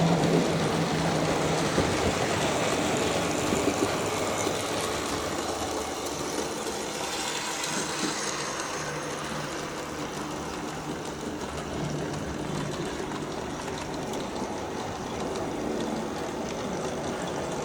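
OO gauge Class 08 model diesel shunter running steadily along the layout track, its small motor humming under the wheels' rolling noise on the rails.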